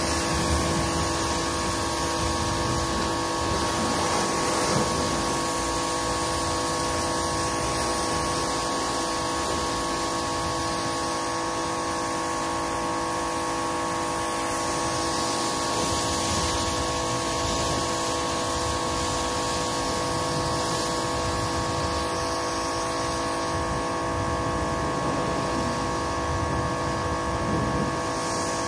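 Pressure washer spraying water onto a car, a steady hiss of spray over the even hum of the washer's motor.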